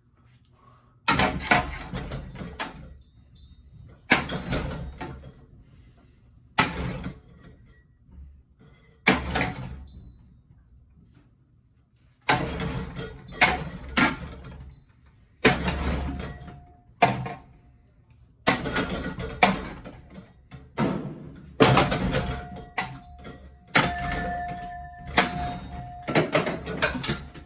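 A ceiling fan being smashed: repeated heavy blows with clattering, breaking parts. The blows come every two or three seconds at first, then in quick runs from about halfway, with a brief metallic ring under some of the later ones.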